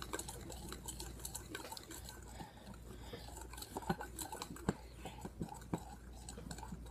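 A spoon stirring a thick, foamy slime mixture of glue, shaving cream and cornstarch in a glass bowl: soft scraping with irregular light clinks of the spoon against the glass.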